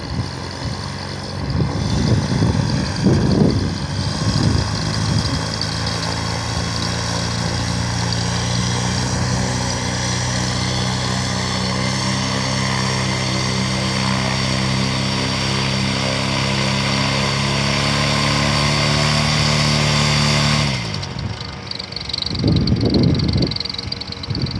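Paramotor engine and propeller running steadily at a low, even speed. About 20 seconds in, its pitch sags and the engine sound drops away. Rushing gusts of noise come early on and again near the end.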